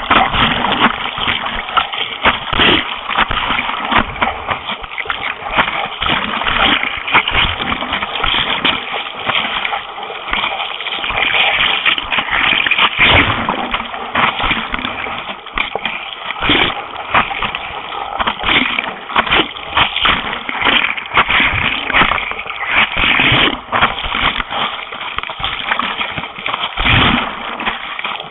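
Seawater splashing and rushing around the nose of a surf racing board as the paddler strokes through broken waves, with many irregular loud splashes of spray hitting the board.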